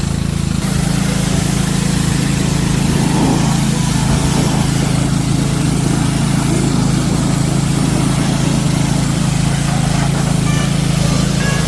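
The small gas engine of a DeWalt 3600 psi pressure washer running steadily, with a steady hiss of spray.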